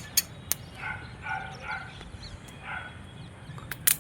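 A dog barking a few short times, with several sharp cracks or pops near the start and near the end.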